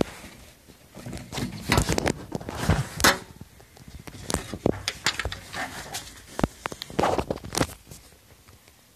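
Aerocool V3X Advance PC tower case being handled and shifted about: a string of irregular knocks, bumps and rustles that stops near the end.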